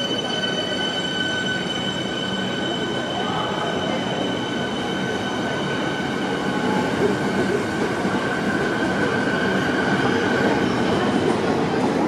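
Metro suburban electric train pulling out of the platform: the rumble of the carriages rolling past, with a steady high whine that fades out near the end as the noise of the passing cars grows.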